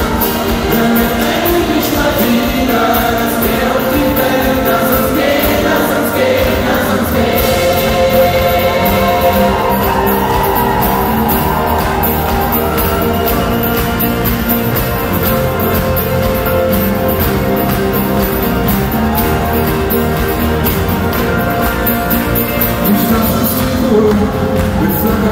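A live pop-rock band, with acoustic and electric guitars, playing a song while a large gospel choir sings along, heard from among the audience.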